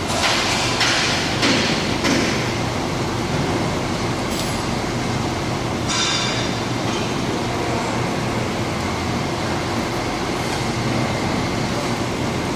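Steady, fairly loud mechanical background noise: a continuous rumble and hiss with a low hum underneath. A few brief, sharper noises stand out about a second in, around two seconds in and again around six seconds in.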